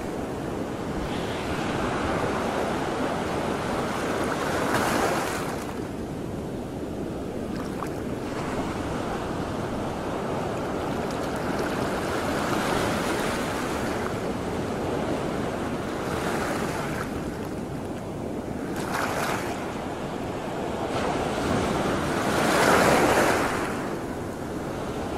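Sea water washing and splashing, with wind buffeting the microphone; the rush swells and fades several times, loudest a couple of seconds before the end.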